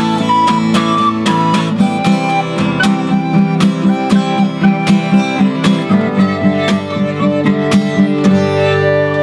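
An acoustic guitar strummed in a steady rhythm under a wooden flute playing a melody of held notes, played live as a duet.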